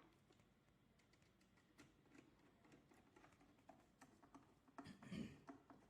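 Near silence with faint, scattered small clicks and taps, a short cluster about five seconds in: a screwdriver and screws at work as the lock's rear cover is screwed down tight.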